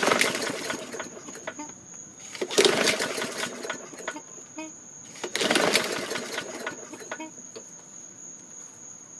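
4.5 hp Briggs & Stratton engine on a 2013 Murray push mower pulled over three times on its recoil starter, about two and a half seconds apart, turning over with good compression but not firing.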